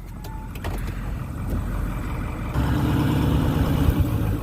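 Vehicle engine running as it drives off, getting louder about two and a half seconds in as it picks up speed.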